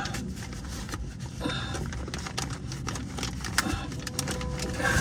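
Plastic zip-top bag crinkling and rustling in gloved hands, with scattered small clicks, as an oil filter is unscrewed inside the bag to catch the draining oil.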